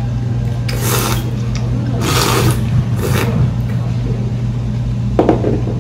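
Ramen noodles slurped from a small bowl held at the mouth, in three short slurps over a steady low hum, then a short knock near the end.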